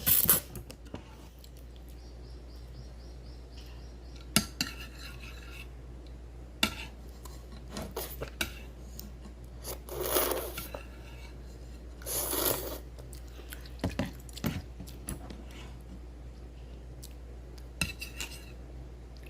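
Eating instant ramyeon from a bowl: utensils clink and scrape against the dish in scattered sharp clicks. There are a few short, louder noisy bursts about ten and twelve seconds in.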